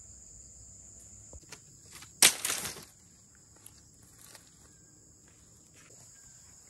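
Insects chirring steadily in a high, even drone. A little over two seconds in comes a sharp knock followed by a short rattle, and there are a few faint ticks.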